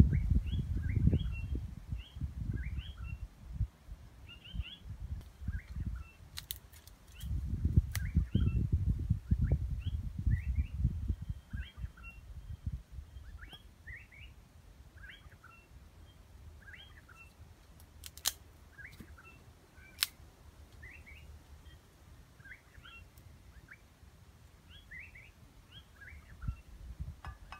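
A songbird repeating a short chirping phrase over and over. Low, gusty rumbling runs under it in the first half, with a few sharp clicks along the way.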